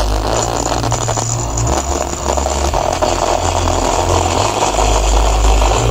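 Music from a 4.1 home-theatre amplifier playing through a satellite speaker on a faulty output channel, coming out harsh and distorted, with a rough buzzing rasp over a bass line that steps from note to note. The distortion is the fault the amplifier is being repaired for.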